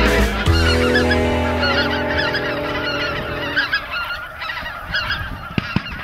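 A large flock of snow geese calling, many high yelping calls overlapping without a break. For the first half a held low chord sounds under them and then fades out.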